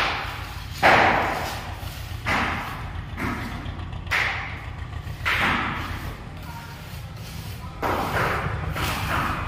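Mason's trowel scraping and knocking: a series of irregular scrapes and taps as the trowel scoops mortar mix from a pan and works it into the rim of a floor chamber opening. A steady low hum runs underneath.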